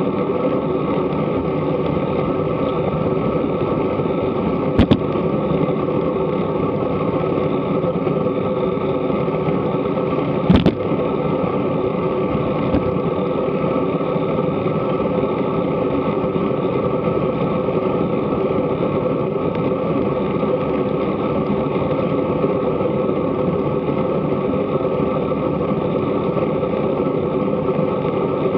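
Steady wind and road rumble on a bike-mounted action camera's microphone while riding a road bike, with two sharp knocks about five seconds in and again some six seconds later.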